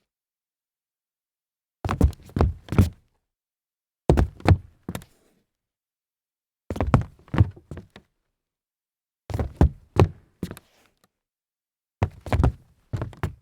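Stumbling footsteps on a hollow wooden floor: five bursts of several uneven thuds, each burst about a second long, with silent gaps between.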